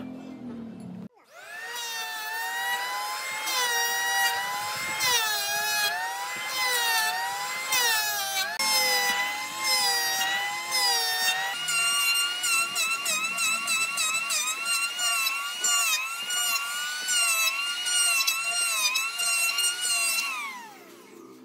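Electric hand planer running as it shaves a glued-up wooden tabletop: a high motor whine that wavers up and down as the blades bite, starting about a second in, then winding down near the end.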